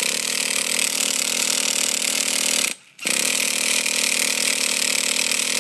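Electric starter spinning a hard-starting nitro glow engine in two long bursts, with a short break between them; the engine does not catch and run.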